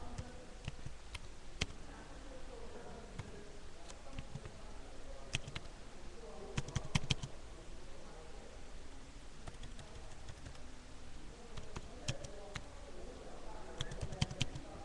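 Irregular sharp clicks and taps, the strongest in a cluster about halfway through, over faint voices.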